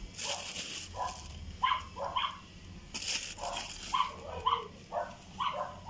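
A dog barking over and over in short yaps, about two a second. Two brief rustling noises come through, one just after the start and one about three seconds in.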